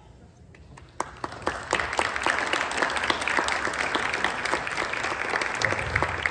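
Audience applauding: scattered first claps about a second in, swelling quickly into steady full applause.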